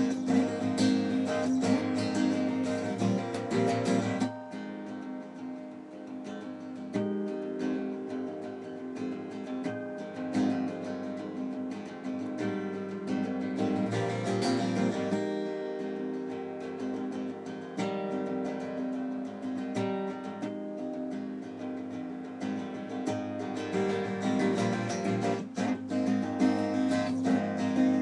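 Solo acoustic guitar playing an instrumental song, strummed. It plays loudly for the first four seconds or so, drops to a softer passage, and grows louder again near the end.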